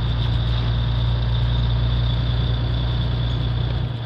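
Volvo D13 inline-six diesel of a tri-axle dump truck running steadily under way as a low, even drone, with a faint steady high whine above it.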